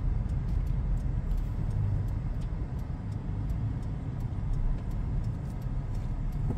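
Steady low rumble of a moving road vehicle, with no speech over it.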